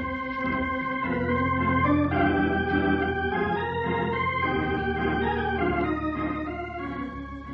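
Organ music bridge in a radio drama: sustained chords changing about once a second, fading out near the end, marking a change of scene.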